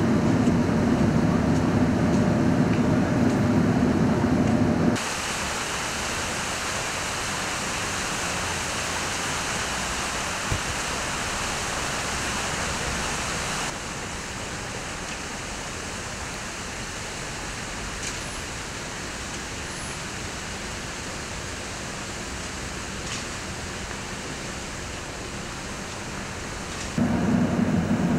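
Outdoor city street ambience: a steady low rumble of traffic for the first five seconds, then a steady even hiss that drops a step in level halfway through. The rumble comes back abruptly near the end.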